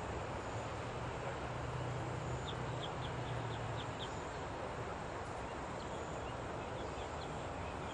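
Open-field ambience: a steady noise bed with a low hum through the first half, and a quick series of short high bird chirps about two and a half seconds in, returning faintly near the end.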